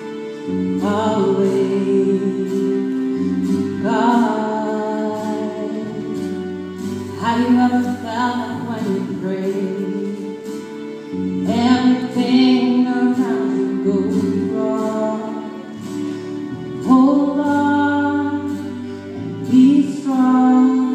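Gospel song: a woman singing phrases over sustained chords and a bass line.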